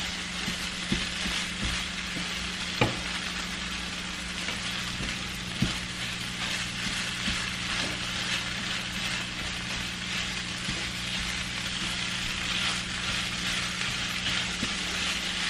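Eggs and shaved turkey frying in a pan, sizzling steadily over a constant low hum, with a few light knocks.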